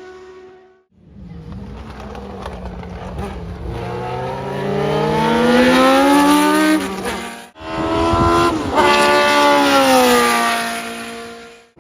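Historic Formula 1 race car engines at high revs. First one car's engine climbs steadily in pitch for several seconds as it accelerates. After a sudden cut, a second engine runs at high revs with its pitch falling away.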